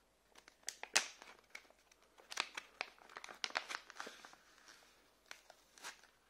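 Packaging being handled and opened around a new wristwatch: irregular light crinkles and sharp little clicks, the sharpest about a second in, with busier stretches in the middle.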